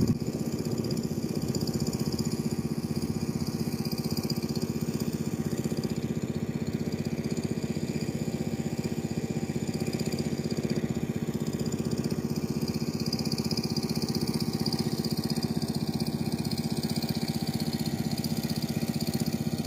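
Small portable engine-driven water pump running steadily at an even speed, pumping water up from the river through its hose.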